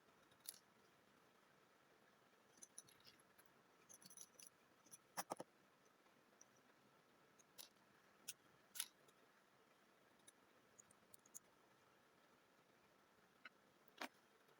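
Faint, scattered small clicks and taps of tools and tiny parts being handled during AirPods reassembly, against near silence; the loudest is a short double tap about five seconds in.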